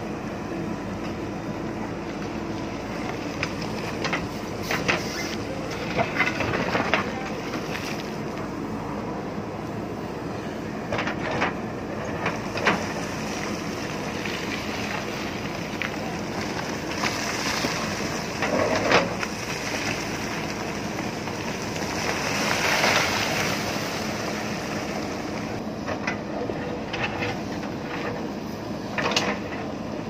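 JCB 3DX backhoe loader's diesel engine running steadily under load while the backhoe bucket digs into stony ground, with scattered sharp knocks and clatters of the bucket striking and breaking rock. A louder knock comes about two-thirds of the way through.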